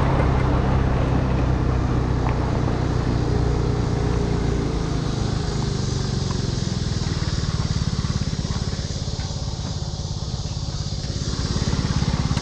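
Motor vehicle engine and road noise while driving: a steady low drone that slowly eases off and builds again near the end.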